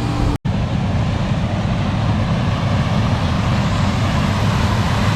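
Combine harvester running steadily while harvesting corn with a six-row corn head: a dense, even machine rumble. It follows a brief cut to silence about half a second in.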